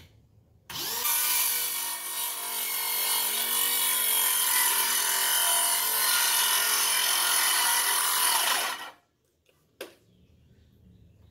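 Bauer 20-volt cordless circular saw with a 24-tooth framing blade spinning up and cutting through wood for about eight seconds, then stopping fairly abruptly. A single click follows shortly after.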